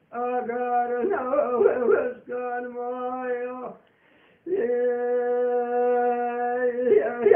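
Solo Kurdish hore singing: one voice holding long steady notes, broken by quick yodel-like turns, with a short breath pause about four seconds in.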